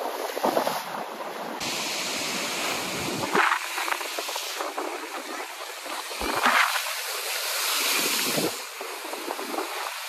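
Sea waves breaking and surf washing over the shore, coming in rising and falling surges, loudest about three and a half and six and a half seconds in.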